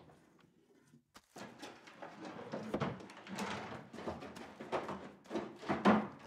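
A wooden desk drawer pulled open and rummaged through: an irregular run of knocks, clatters and rustles as things are shifted about inside, starting after a brief hush, with the loudest knock near the end.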